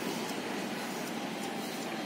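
Distant Nagpur Metro train running along its elevated viaduct: a steady low rumble, with a faint whine coming in about a second in.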